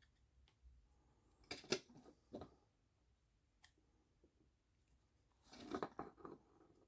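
Faint plastic clicks and scrapes of an Acura RDX key fob's shell being pried apart with a tool: a sharp click about one and a half seconds in, another a second later, and a short run of scraping clicks near the end.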